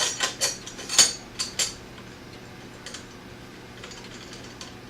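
Metal parts of a 3D printer frame being handled: about six sharp clicks and taps in the first second and a half, then a few faint ticks.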